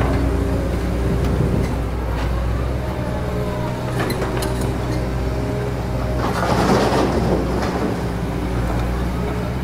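Komatsu PC200 hydraulic excavator's diesel engine running steadily as it digs, with a few sharp knocks and a louder rushing stretch about two-thirds of the way through, as the loaded boom lifts.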